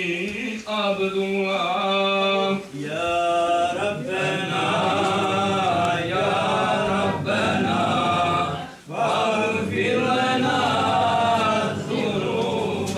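Men's voices chanting a devotional Islamic hymn (ilahija), long held notes with ornamented glides in pitch. There are short breath pauses about three and nine seconds in.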